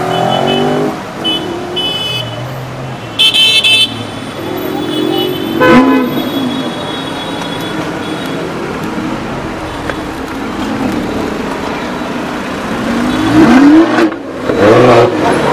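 Lamborghini Huracán's V10 revving through a Fi aftermarket exhaust, its pitch rising and falling in blips about six seconds in and again near the end, which are the loudest moments. Car horns toot several times in traffic in the first few seconds.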